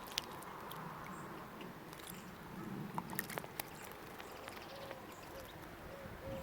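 Outdoor bird ambience: a few sharp clicks and taps, faint thin high bird calls, and from about two-thirds of the way in a dove softly cooing in short repeated notes.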